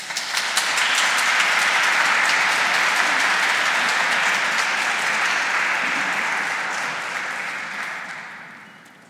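Audience applause, swelling to full strength within the first second, then dying away near the end.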